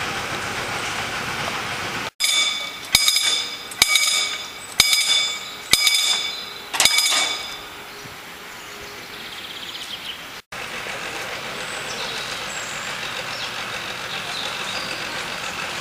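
Level-crossing warning bell striking six times, about once a second, each stroke ringing on and fading before the next.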